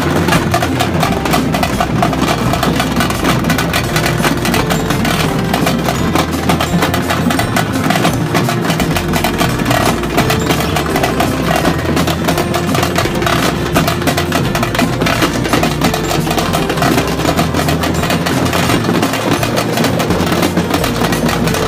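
Festive music dominated by loud, fast drumming that keeps up steadily throughout.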